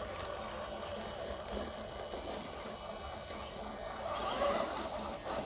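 Radio-controlled rock crawler truck driving slowly: low, steady electric motor and drivetrain noise that swells briefly about four seconds in.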